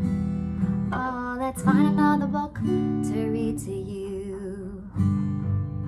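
Yamaha steel-string acoustic guitar strummed in chords, with a short wordless vocal about a second in. Through the middle a chord is left ringing, and the strumming picks up again about five seconds in.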